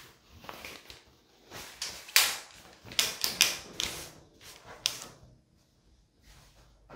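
A fishing rod being drawn out of its cloth sleeve: a quick run of sharp rustles, scrapes and light knocks, the loudest about two seconds in, dying away after about five seconds.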